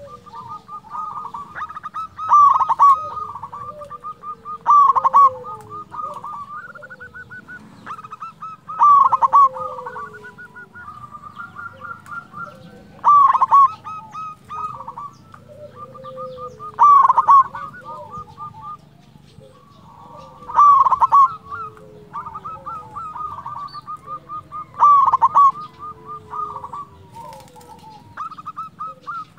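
A zebra dove (perkutut) singing its cooing song: a loud, rolling phrase about every four seconds, with softer trilling notes between.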